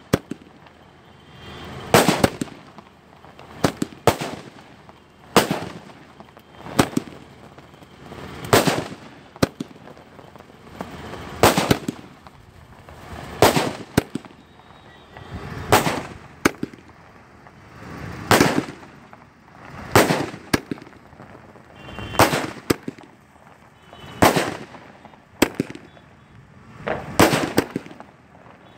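A 500-shot aerial firework cake firing about one shot every two seconds: each shot is a rising hiss that ends in a sharp crack, and several are followed at once by a second bang.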